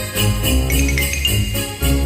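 Background Christmas music with jingle bells over a steady bass beat.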